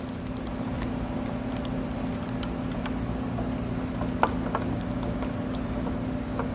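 Tannic acid solution being stirred in a jug: scattered light clicks and taps of the stirrer against the jug, one sharper knock about four seconds in, over a steady background hum.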